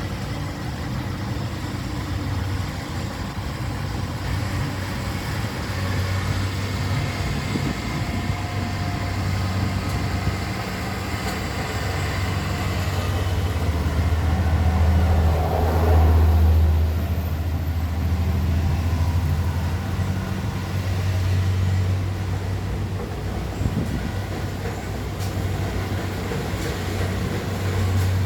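A rice combine harvester's engine running steadily with a deep hum, growing louder about halfway through and then easing back.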